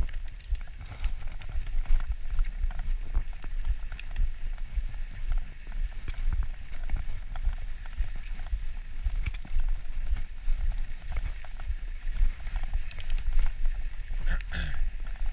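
Mountain bike rolling fast down a dirt and grass trail: wind rumbling on the camera microphone over tyre noise, with frequent knocks and rattles from the bike over bumps. A short higher-pitched sound comes near the end.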